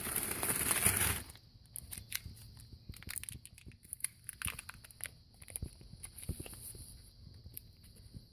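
A sealed packet being torn open for about a second, then scattered crinkles and small clicks as the packaging and the USB-C cord inside are handled.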